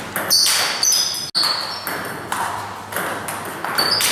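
Table tennis rally: the celluloid-type ball clicking sharply off the rubber bats and the table in quick succession, each hit with a short high ping, about one to two hits a second.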